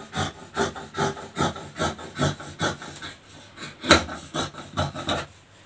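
Scissors snipping through cloth, a steady run of cuts at about two to three a second, following a rounded curve cut into a sleeve piece. One snip about four seconds in is sharper than the rest.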